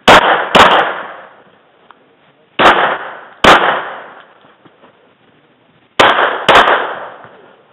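Six pistol shots fired in three pairs, about half a second apart within each pair, each shot trailing off in a short echo.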